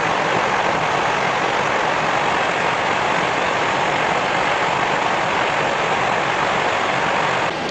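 Steady, even rushing noise with no distinct tone, stepping down slightly in level near the end.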